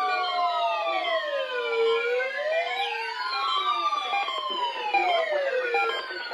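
Several weather alert radios and alert receivers sounding their alarms at once, set off by a required weekly test. Overlapping siren wails at different pitches rise and fall slowly, with short steady beeping tones among them.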